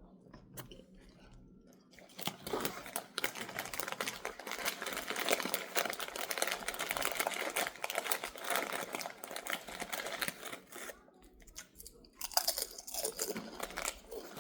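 Crunching and chewing of thick kettle-cooked potato chips close to the microphone. It starts about two seconds in, goes on densely for around nine seconds, pauses briefly, then picks up again near the end.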